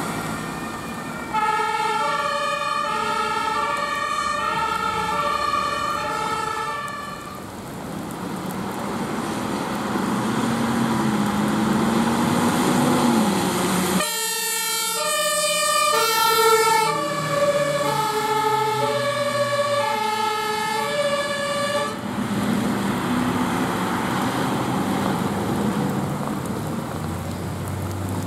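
German two-tone emergency-vehicle siren (Martinshorn) alternating between a high and a low note as the vehicle drives by, over engine and road noise. It stops after several seconds, and another two-tone siren sounds from about halfway through for several seconds, followed by road noise.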